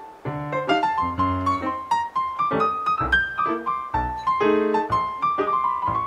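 Background piano music: a quick melody of single notes over low bass notes, the melody climbing higher near the end.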